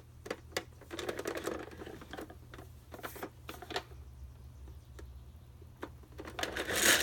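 Scattered plastic clicks and rattles from a 1990 Mattel See 'n Say toy being handled. A louder sound from the toy starts to build near the end.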